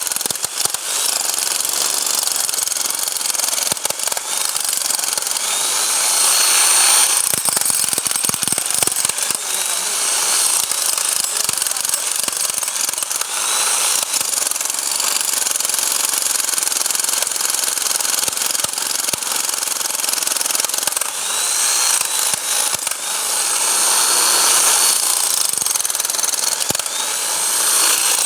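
Bosch hammer drill running continuously under load, hammering with a steady rattling whine. Its motor pitch briefly rises several times.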